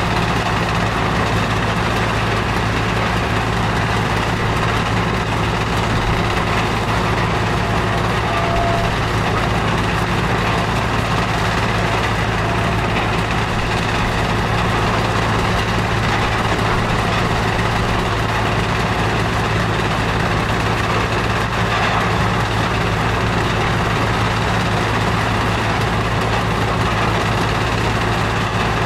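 Powerscreen mobile screening plant running steadily: a constant low diesel-engine drone with machinery and conveyor noise over it, unchanging throughout.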